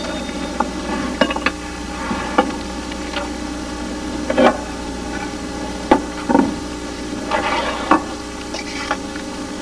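Lobster tails frying in a pan, a steady sizzle with scattered clinks and knocks of utensils and pans.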